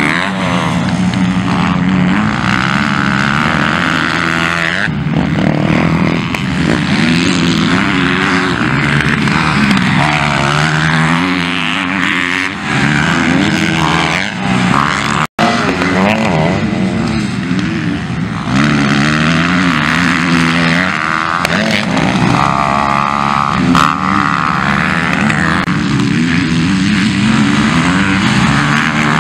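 MX2-class motocross dirt bike engines running hard, their pitch rising and falling again and again as the riders open and close the throttle through the track. The sound drops out for an instant about halfway through.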